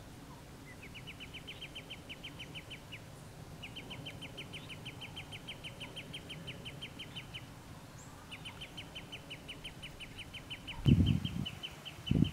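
A bird trilling: a fast run of short, sharp notes at about ten a second, given in three long phrases of a few seconds each. Near the end come two heavy low thumps, louder than the bird.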